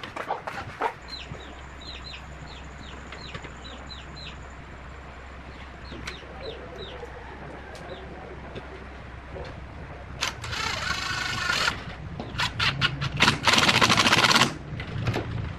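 Chickens peeping, a run of short high falling chirps, over a steady low hum. Near the end come two loud noisy bursts, each a little over a second long, separated by a few clicks.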